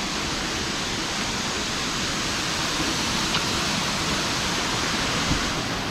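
Mountain stream rushing and splashing over rocks in a steady, unbroken wash of water noise.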